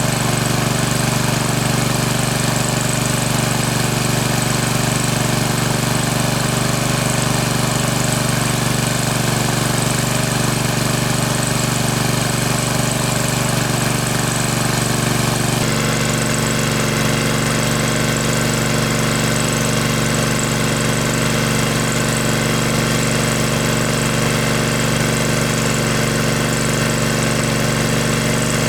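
Small engine running steadily at a constant speed, its tone shifting slightly about sixteen seconds in.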